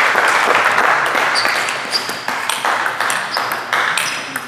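Table tennis rally: the ball clicks sharply off the bats and table about every half second, each hit with a brief high ring. Applause fades out under the first hits.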